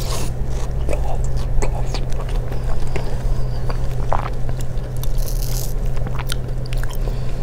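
A person chewing mouthfuls of ripe mango close to a clip-on microphone: irregular small wet mouth clicks, over a steady low hum.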